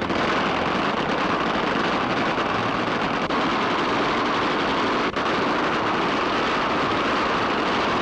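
Massed automatic gunfire from a line of Thompson submachine guns firing together, the shots merging into one steady, unbroken rattle.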